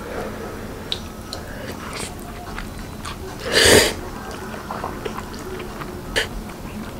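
A mouthful of black-bean-sauce noodles slurped in one loud burst a little past halfway, with chewing and a few light clicks of chopsticks against a ceramic bowl around it.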